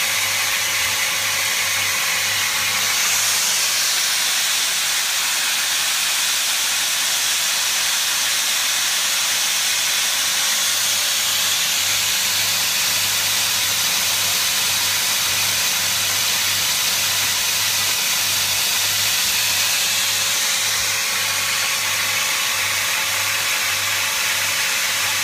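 A steady, loud hiss with a faint low hum that pulses at an even rhythm underneath.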